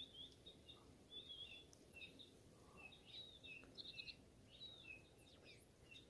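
Faint calls of small songbirds: many short, high chirps scattered through, with a few quick trills.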